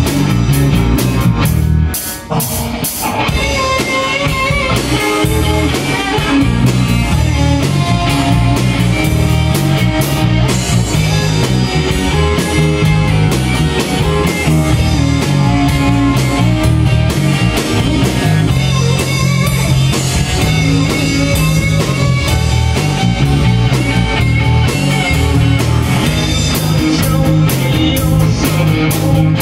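Live rock band playing: guitar over a drum kit, with no singing in this stretch. The sound dips briefly about two seconds in.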